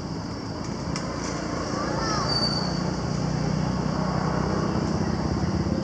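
A motor engine running, with a low steady hum that grows louder about two seconds in.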